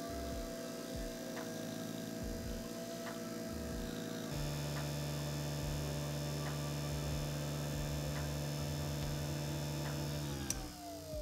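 Motor of a variable-speed benchtop leather burnishing machine running with a steady hum while a leather edge is held in its grooved burnishing tip, with a light tick about once a second. The hum changes about four seconds in, and near the end its pitch slides down as the motor is turned down and spins down.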